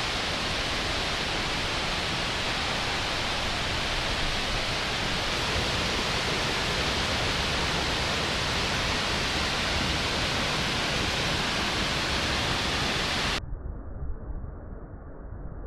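Steady, loud roar of a waterfall's falling water. About 13 seconds in it cuts off suddenly to a much quieter, muffled rumble.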